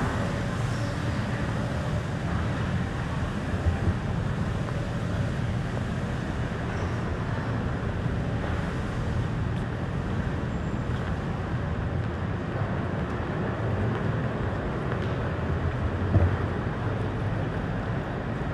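Steady low rumble of city street traffic, with a brief knock a few seconds in and another near the end.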